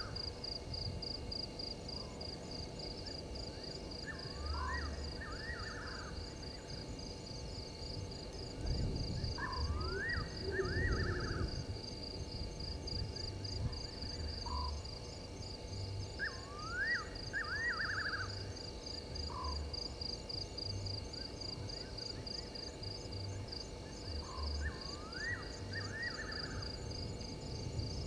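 Night bush ambience: insects chirring in a steady, fast-pulsing high trill. About every four seconds an animal call repeats, a quick run of rising-and-falling whistled notes followed by one short lower note. From about eight to twelve seconds in, a louder low rustling noise rises and falls.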